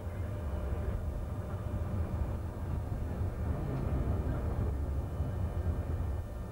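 Alstom TFS tram running along street track, heard from inside the driver's cab: a steady, low running noise with faint steady tones above it.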